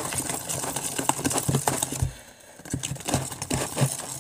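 Spoon stirring sticky slime in a plastic mixing container, making irregular clicks and knocks, with a short pause about halfway through.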